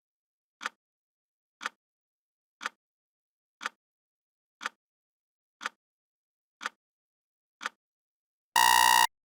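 Countdown timer's clock ticking once a second, eight ticks in all, then the finish alarm: a loud electronic beep of about half a second near the end as the timer reaches zero.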